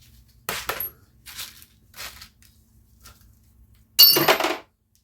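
Small metal parts clinking, with a few light clinks and then a loud metallic clatter that rings briefly about four seconds in. These are engine valves and parts being pulled and set down while a Tecumseh engine's valves are removed.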